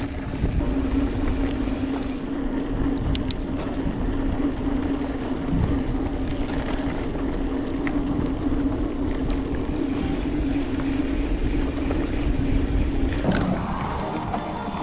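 Mountain bike rolling along a dirt singletrack: wind buffeting the camera microphone over the rumble of the tyres and bike on the trail, with a steady low hum that cuts out near the end and a few light rattles.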